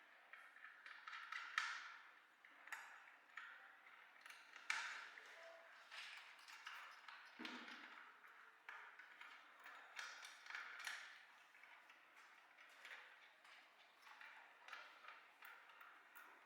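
Faint, irregular light clicks and taps of small parts and tools being handled during repair work, several each second with a few sharper knocks.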